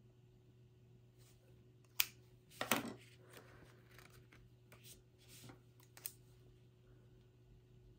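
Hands handling banknotes and plastic storage sleeves: a sharp click about two seconds in and a short crackly rustle right after, then a softer rustle and another click around five to six seconds in, over a faint steady hum.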